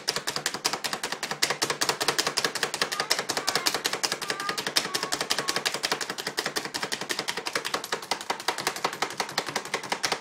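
Hand-pressed plunger food chopper, a knockoff Chop Genie, being pumped down on an onion: a rapid, even run of clacks, several a second.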